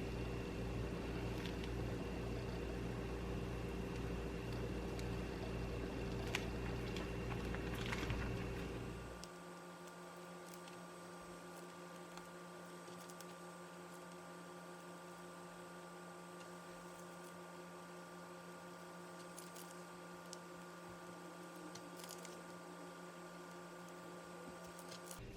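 Steady mechanical hum of a running household appliance, with a few light clicks; about nine seconds in the deep hum stops and a quieter, higher-pitched hum carries on.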